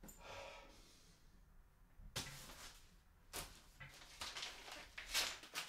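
Paper leaflet being handled, faint rustles in several short bursts, the loudest near the end.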